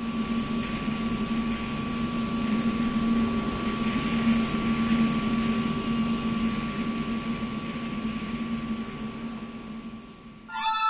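Steady industrial noise at a cement kiln's burner station: a constant low hum with a thin, steady high whine and a hiss over it, fading near the end. Synthesizer music starts just before the end.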